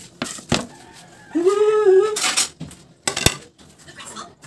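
Onion being peeled and handled on a wooden cutting board, with a kitchen knife knocking and scraping on the board: a knock about half a second in, a scrape just after the middle, and a sharp tap past the three-second mark. A voice hums one short note that rises and falls in the middle.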